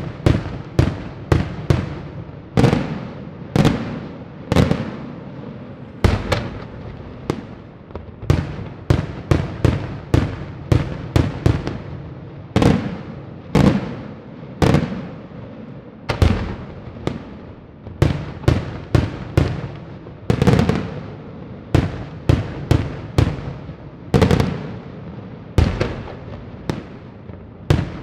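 Daytime fireworks display: a rapid, irregular run of loud aerial shell bursts, about two bangs a second, each followed by a short echo.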